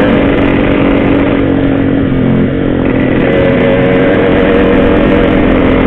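Yamaha RX-King's two-stroke single-cylinder engine running steadily at a constant pitch while being ridden, with a slight drop in level a little over two seconds in.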